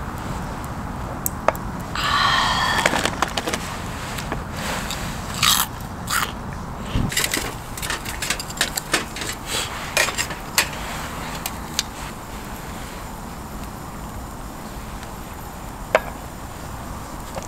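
Firewood burning in a small fire pit with a low steady rush, while the logs are prodded and shifted with a metal tool: a run of sharp clicks, knocks and scrapes in the middle, and one sharp click near the end. A short falling tone sounds about two seconds in.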